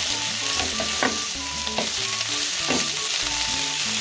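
A wooden spatula stirring and scraping moringa leaves, cooked toor dal and onions around a hot oiled kadai, with a steady sizzle and a few sharper scrapes against the pan. Soft background music plays underneath.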